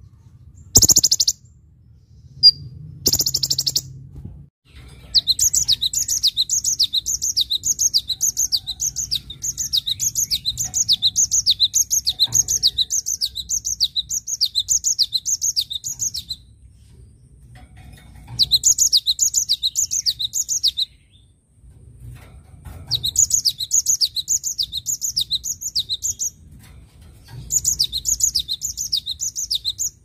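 Cinereous tit (gelatik batu) singing: long runs of quickly repeated, high falling notes in four bursts with short pauses between them, after a few brief high calls in the first seconds.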